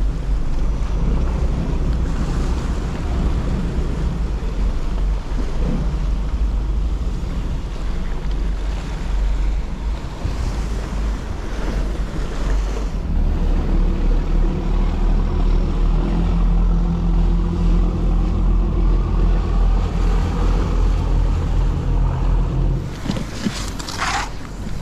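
Waves washing against shore rocks with wind on the microphone, under the low drone of a fishing ferry boat's engine as the boat backs away; the engine drone is stronger and steadier from about halfway through. A brief rustle of handling near the end.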